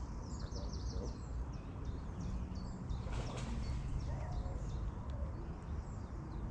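Small birds chirping and twittering repeatedly over a steady low rumble.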